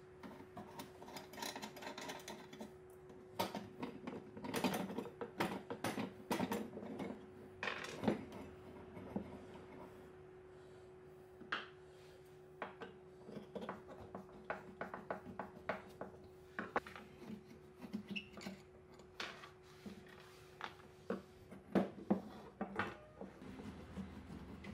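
Antique beam drill being handled and dismantled on a wooden workbench: irregular clicks, knocks and scrapes of its iron fittings against each other and against the wood. A faint steady hum runs underneath and stops near the end.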